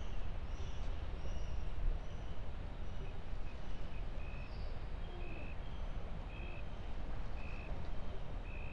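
Outdoor ambience: a steady low rumble with faint high chirps, and from about three seconds in a short high beep repeating roughly once a second.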